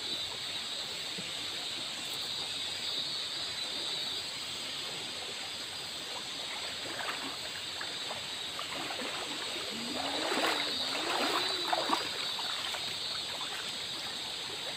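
Shallow river flowing steadily over rocks and fallen logs, an even rushing of water. A short wavering sound rises and falls briefly about ten seconds in.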